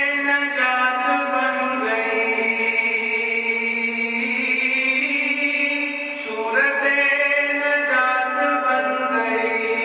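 A man's solo voice reciting a naat, an Urdu devotional poem in praise of the Prophet, unaccompanied and in long held melodic phrases. A new phrase begins about two seconds in and another past six seconds.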